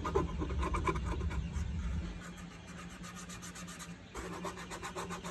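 Quick scratchy rubbing strokes across the primed, wet-sanded surface of a 3D-printed PLA helmet piece, louder for about the first two seconds and then softer. The rubbing shows how smooth the wet-sanded surface is compared with plain sanding.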